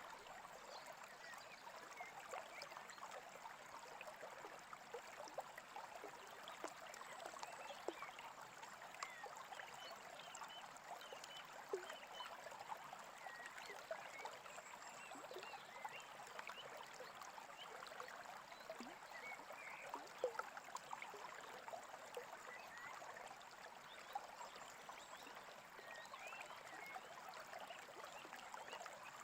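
Small stream babbling and trickling steadily, faint.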